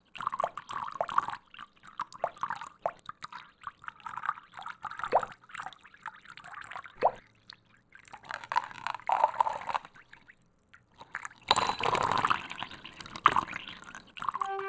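Water dripping and plopping in irregular drops, then a louder, denser rush of water starting about eleven and a half seconds in.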